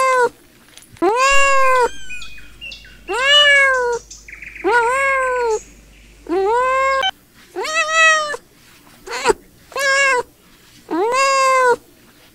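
Kittens meowing repeatedly: about nine short, high-pitched meows, each rising then falling in pitch, about a second apart.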